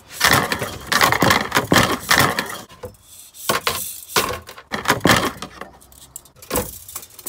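Clattering and rattling of hard objects, wood and metal knocking and clinking in quick runs, with a short pause about three seconds in and scattered knocks near the end.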